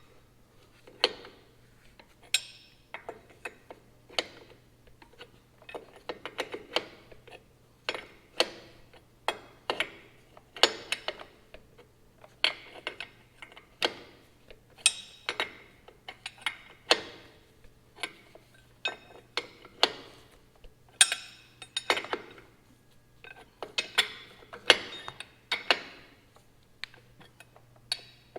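Hand ratchet wrench clicking in short irregular runs as a bolt is tightened down.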